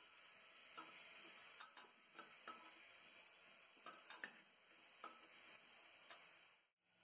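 Faint, irregular clicks and scrapes of a metal spatula against the side of an aluminium pressure cooker while stirring vegetables and chicken frying inside, over a soft hiss.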